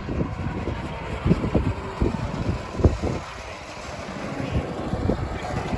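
Two-seater go-kart's engine running as the kart drives along the track, getting louder in the second half as it nears, with gusts of wind buffeting the microphone.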